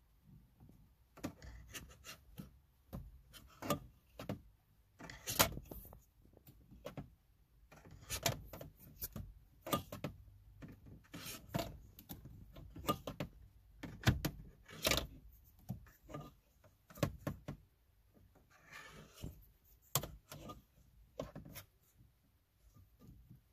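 Irregular light plastic clicks, taps and rubbing as fingers handle a vinyl bobblehead figure fitted as a car's gear shift knob, with a longer scrape about 19 seconds in.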